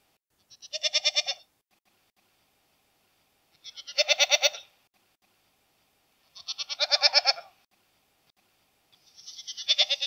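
Goat bleating four times, each bleat about a second long with a fast wavering tremble, with short pauses between them.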